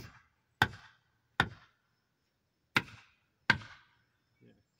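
Hammer blows on a wooden board, driving it down so that it fits: five sharp strikes, with a short pause after the third.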